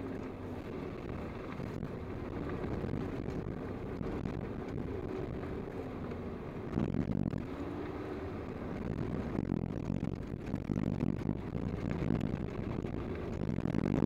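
Toyota Land Cruiser driving a dirt road, heard from inside the cab: a steady low rumble of engine and tyres on dirt, with louder jolts about seven seconds in and again a few seconds later.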